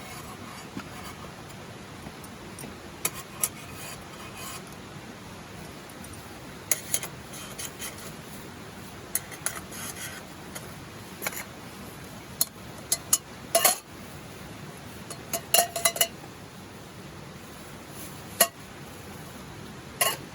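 Scattered sharp metallic clinks and knocks, irregular and a couple of them ringing briefly, over a steady background hiss.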